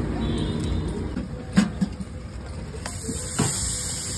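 A large block of butter starts sizzling on a hot iron tawa a little under three seconds in, a bright steady hiss, over a low rumble of street traffic. A sharp knock comes about one and a half seconds in, and a softer one near the end.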